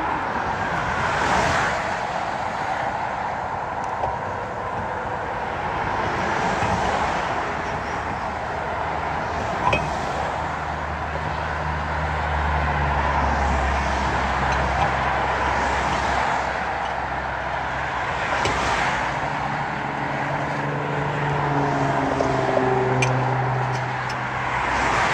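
Highway traffic passing close by: cars and trucks whooshing past every few seconds, with a heavy vehicle's low engine drone through the second half. A few short sharp clicks are heard in between.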